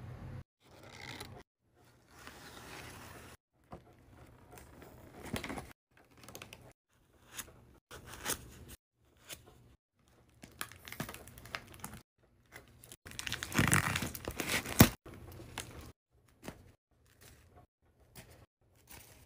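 Plastic packaging and cardboard of a toy doll food refill set being handled: crinkling and rustling in short, irregular bursts, with a louder stretch of crinkling about two-thirds of the way through.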